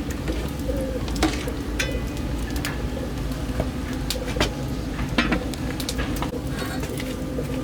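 Kitchen utensils clinking and scraping against a pot or dishes, a string of irregular small clicks and knocks over a steady low hum.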